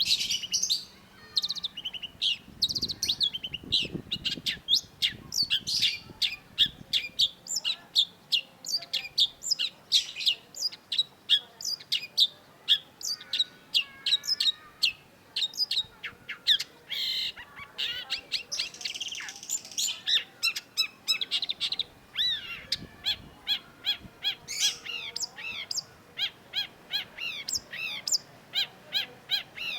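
Long-tailed shrike singing a fast, unbroken run of sharp, high chattering notes, several a second, with a harsher scratchy passage about two-thirds of the way through.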